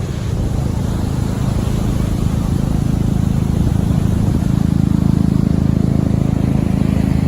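An engine running steadily, a low drone that grows a little louder about four and a half seconds in.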